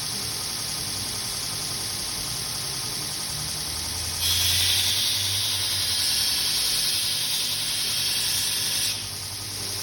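Belt grinder running steadily. About four seconds in, a workpiece is pressed to the belt and a louder grinding hiss sets in for about four and a half seconds, then stops, leaving the grinder running.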